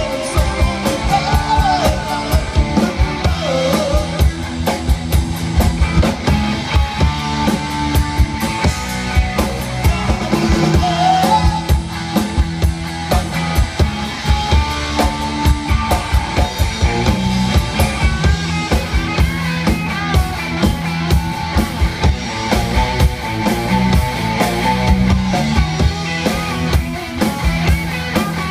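Live rock band playing: guitars over a drum kit keeping a steady beat.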